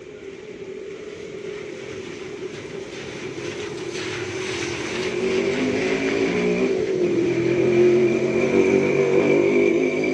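Motor vehicle engine running and getting steadily louder, as if coming closer.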